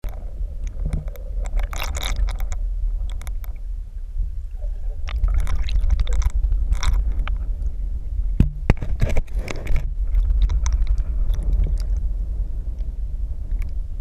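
Muffled low rumble of river current heard from an underwater camera. Several bouts of scraping and rustling, with a few sharp knocks about eight and a half seconds in, as the camera shifts against mossy rocks on the riverbed.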